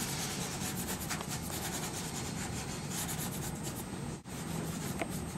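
Pastel stick rubbing and scratching across paper in quick repeated strokes as colour is laid into the sky. It breaks off for an instant about four seconds in.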